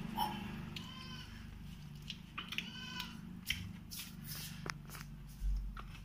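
Two short animal cries, one about a second in and a longer one around three seconds, over scattered light clicks and a low steady hum; a low thump comes near the end.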